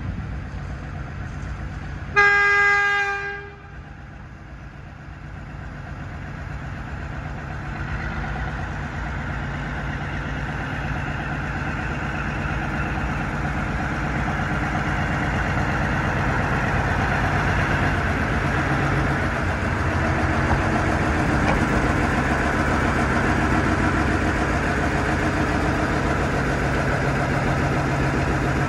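A 1960 Ruston & Hornsby diesel shunting locomotive sounds one horn blast of about a second and a half, about two seconds in. Its diesel engine then runs steadily, getting louder as the locomotive approaches.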